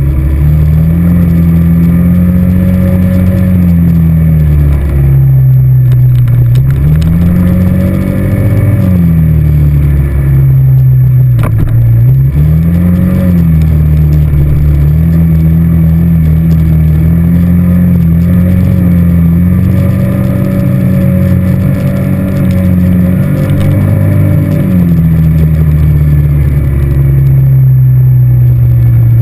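ATV engine running close up while the quad is ridden, its pitch rising and falling with the throttle; it drops back about five, eleven and twenty-five seconds in, then climbs again.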